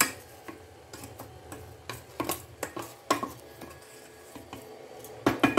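A spatula knocking and scraping against a stainless-steel pot while sugar is spread over rice: a string of irregular sharp clicks, with a louder cluster near the end.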